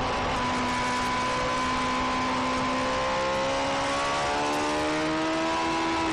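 Suzuki GSX-R sport bike's engine running at steady road speed under wind rush. Its pitch holds level, then rises gently about four seconds in as the bike speeds up.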